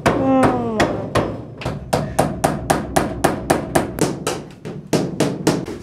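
Hand hammer striking rapidly, about five blows a second, nailing along the bottom edge of a wall panel on a set wall. A short falling pitched sound is heard in the first second.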